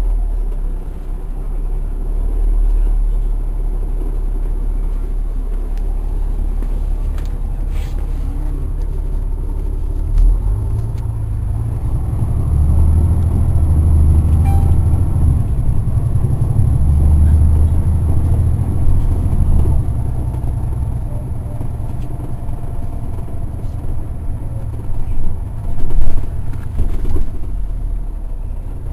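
Caterpillar C9 inline-six diesel of a Neoplan AN459 articulated transit bus, heard from inside the cabin as a low rumble. The rumble grows much louder about ten seconds in, stays strong until about twenty seconds, then eases. A few short knocks sound near the end.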